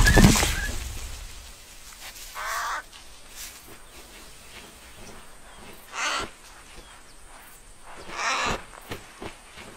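Cartoon bird squawking: three short calls about two to three seconds apart. A heavy thump dies away at the start.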